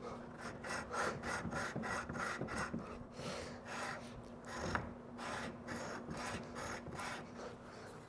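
Copper pipe end cap rubbed back and forth on sandpaper by hand, a rapid scraping rhythm of about four to five strokes a second. The end face is being sanded flat so an O-ring can seal against it and stop an air leak.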